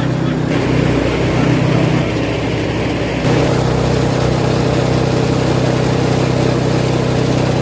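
Home-built banana-stem chopping machine running with a steady engine note. About three seconds in, the tone shifts and gets a little louder.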